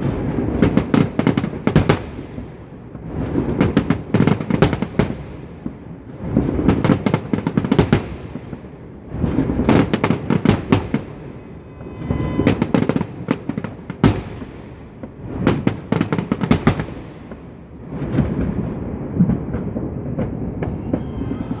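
Fireworks salute going off in volleys: clusters of sharp bangs and crackling every two to three seconds, each followed by a rumbling echo.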